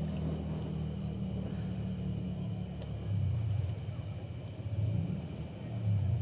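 Night insects, such as crickets, chirring in a steady, fast-pulsing high trill over a low rumble of wind and handling noise on the microphone.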